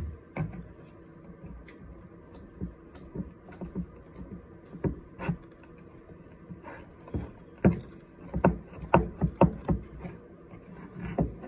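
A spatula stirring slime in a plastic bowl: irregular knocks and scrapes against the bowl, coming quicker and louder in the second half.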